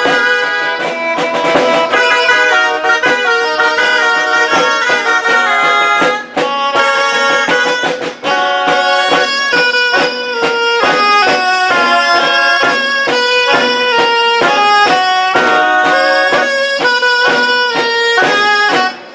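A band of grallas, Catalan double-reed shawms, playing a folk tune in several parts, with side drums keeping the beat.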